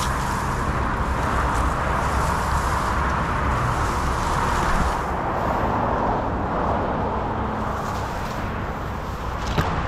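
Leaves and branches of a guava tree rustling and crackling as fruit is picked among them, with a short sharp snap near the end.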